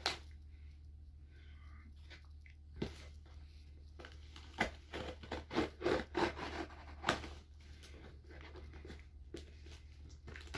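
Packaging being handled during an unboxing: irregular crinkling and rustling, busiest in the middle, over a low steady hum.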